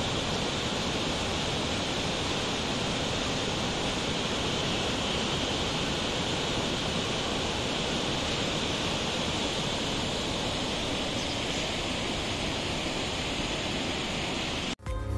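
Mountain river rushing over boulders in rapids: a steady rush of white water. It cuts off abruptly near the end.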